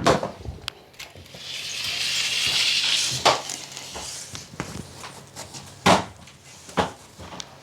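Drywall ceiling being pulled down: a scraping, crumbling rush lasting about two seconds, then a few separate sharp knocks as pieces are worked loose and strike.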